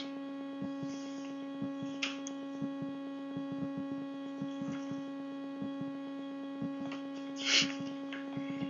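Steady electrical hum in the recording, a stack of constant tones, with faint irregular ticks and a short hiss about seven and a half seconds in.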